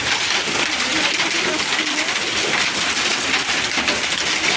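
Hail falling: countless small ice stones striking surfaces, their rapid hits merging into a dense, steady hiss.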